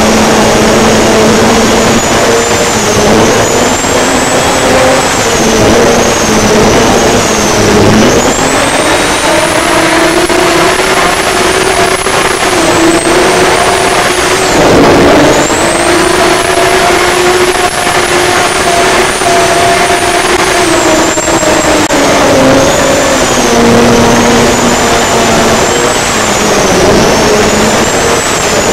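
Turbocharged, alcohol-fuelled race-boat engine running hard at high revs, with a high turbo whistle that rises and falls along with the engine note. Twice, about eight and fifteen seconds in, the revs drop sharply as the throttle comes off, then climb again.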